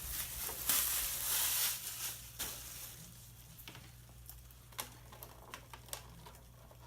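Rustling and crinkling of packaging as the RC truck is handled and unpacked, fading after about two and a half seconds into a few scattered light clicks and taps of handling.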